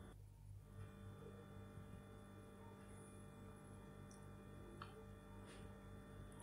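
Near silence: a faint steady electrical hum, with a couple of faint short clicks about five seconds in.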